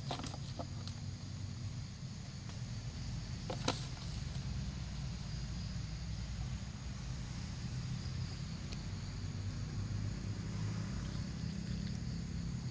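Outdoor background: a steady low rumble with a few soft clicks and one sharp click about four seconds in.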